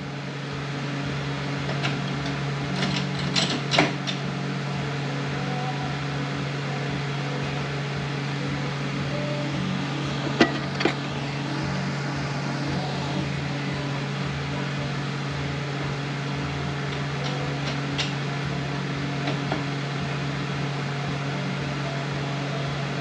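A few scattered light metallic clicks as parts of a Ford 10R80 automatic transmission's gear train are handled and seated by hand inside the case, over a steady low hum.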